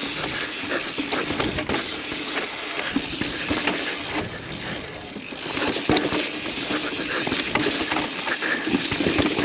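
Yeti SB150 mountain bike riding fast down a rough, technical descent: a steady rush of tyre and trail noise, broken by frequent knocks and rattles as the bike hits bumps.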